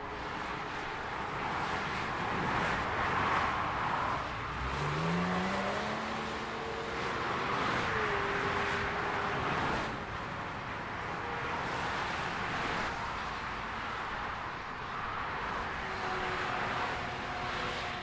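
Continuous motorway traffic: tyre and engine noise from cars and lorries passing at speed, swelling and fading as each vehicle goes by, with a tone rising in pitch about five seconds in.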